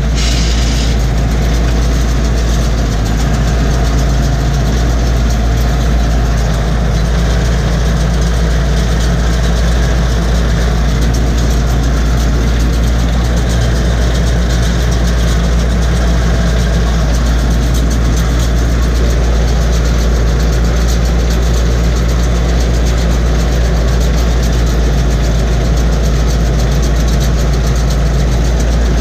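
Tractor engine running steadily, heard from inside the cab while it pulls and drives a SIPMA PS 1312 round baler baling hay.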